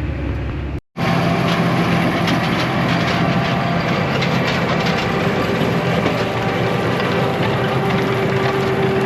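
Heavy machinery running with a steady, dense rattle and clatter of many small knocks. Before it, a vehicle engine runs and is cut off abruptly about a second in.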